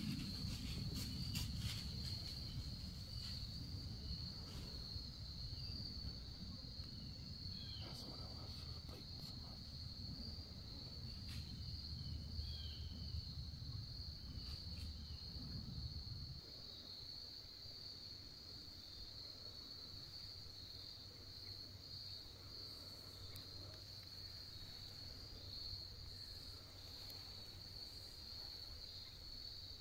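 Steady high-pitched insect chorus of crickets in the woods, running without a break. Under it a low rumble stops suddenly about sixteen seconds in, and a few faint clicks and short chirps come through in the first half.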